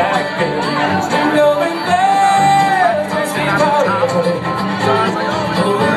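Bluegrass string band playing live with a sung vocal; a long held note comes in about two seconds in.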